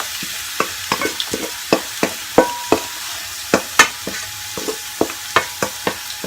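Chopped celery and red onion sizzling in hot cooking oil in a pan. A utensil knocks against the pan in sharp, irregular clicks, about three a second, as the vegetables are stirred.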